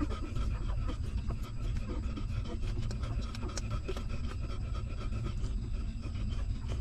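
Newborn puppies suckling at their mother dog's teats: a steady run of small wet sucking clicks over a constant low rumble.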